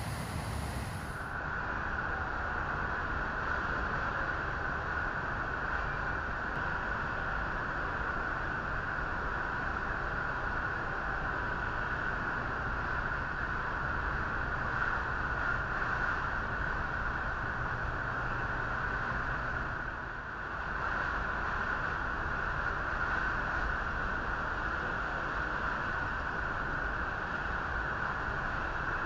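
Steady outdoor rushing noise with a constant hissy band in it, dipping briefly about twenty seconds in.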